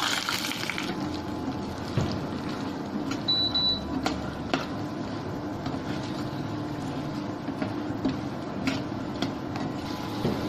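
Raw peanuts frying in hot oil in a metal kadai: a steady sizzle, loudest in the first second after they go in. A metal slotted spoon clinks against the pan a few times as they are stirred.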